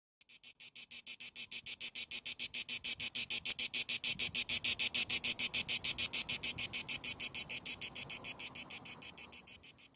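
Cicada song: a rapid, even, high-pitched pulsing buzz of about eight pulses a second. It swells to its loudest around the middle and fades toward the end.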